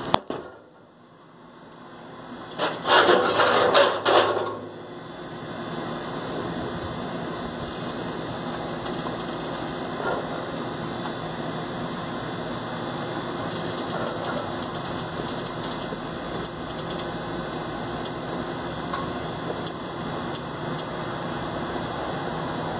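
Chicken and chorizo sizzling on a grill: a loud rush of sizzling about three seconds in, then a steady crackling hiss.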